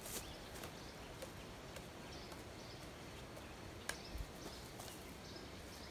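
Soft clacks of juggling clubs caught in the hands, two sharper ones at the start and about four seconds in, over quiet outdoor background noise with faint bird chirps.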